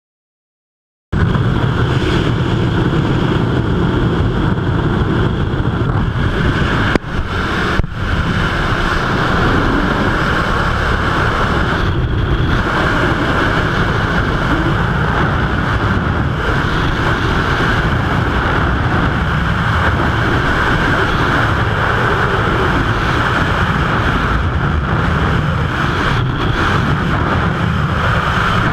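Skydiving freefall wind rushing over the camera's microphone as a steady, loud noise. It starts abruptly about a second in and briefly dips twice a few seconds later.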